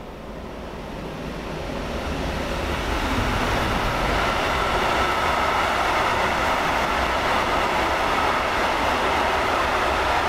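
Electric-hauled intermodal freight train passing close by, its wagons loaded with semi-trailers. The rolling noise grows over the first few seconds as the train comes up, then holds at a steady, loud rumble of wheels on rail.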